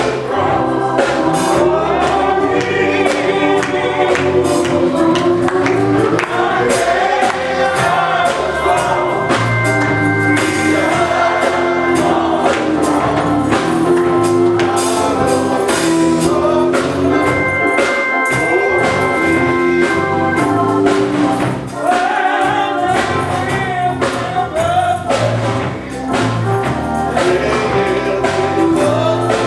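Gospel choir singing with a band, tambourine and drums keeping a steady beat.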